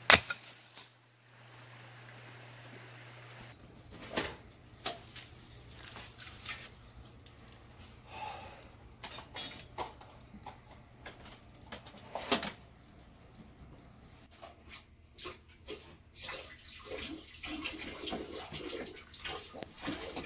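A sharp knock at the very start. Then a wood fire crackles with scattered irregular snaps and knocks, and from about sixteen seconds in a steady wash of running water.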